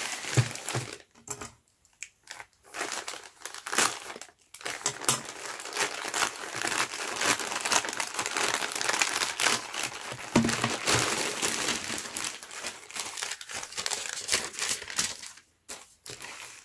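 A plastic poly mailer crinkling and rustling as it is cut open and the plastic-wrapped contents are pulled out. The crackling comes in stretches with short pauses in the first few seconds, then runs densely and dies down near the end.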